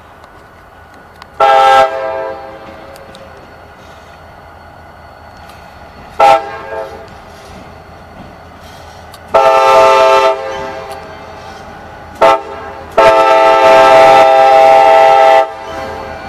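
CSX diesel freight locomotive's multi-chime air horn sounding five blasts, mixing short toots with longer ones; the last is held about two and a half seconds. Under the horn, the freight cars roll by with a steady rumble.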